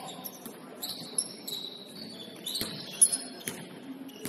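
Basketball shoes squeaking on a hardwood court in short, high chirps, with a few sharp ball bounces about two and a half to three and a half seconds in.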